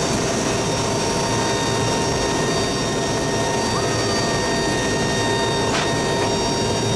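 C-130's four Allison T56 turboprop engines running steadily, a loud drone with high turbine whine, heard from inside the cargo hold. A single click about six seconds in.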